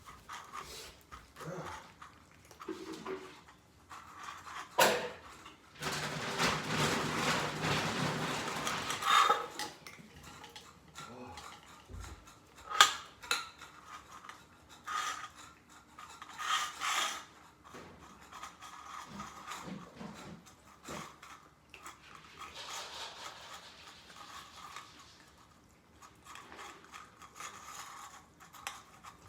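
Clinks and knocks of pet food bowls and dishes being handled, with a few seconds of steady rushing noise about six seconds in.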